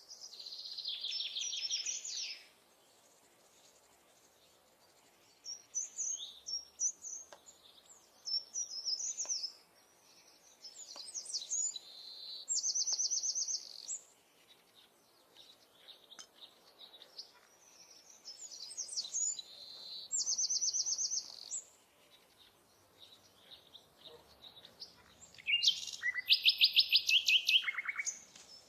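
A songbird singing: short high-pitched song phrases repeated every few seconds with pauses between them, several ending in a rapid trill of evenly spaced notes. The loudest phrase comes near the end.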